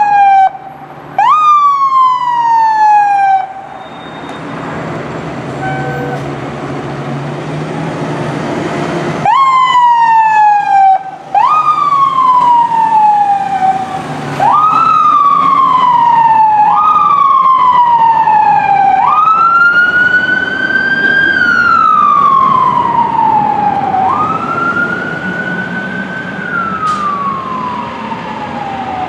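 Fire engine siren on a 2017 Pierce Arrow XT, its pitch jumping up sharply and falling away in repeated cycles of about two seconds. It drops out about four seconds in, leaving a low rumble, and comes back about nine seconds in; from about 19 s the cycles stretch into slower, longer wails.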